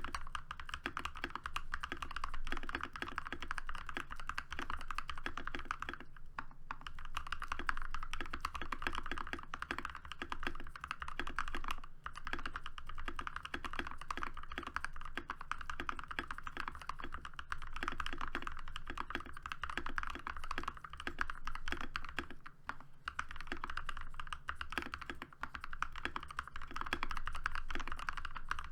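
Continuous fast typing on a Keychron V4 60% mechanical keyboard with hand-lubed Gazzew linear switches, lubed stock stabilizers and dye-sub PBT Cherry-profile keycaps: a dense stream of key strokes, with short breaks about six, twelve and twenty-two seconds in.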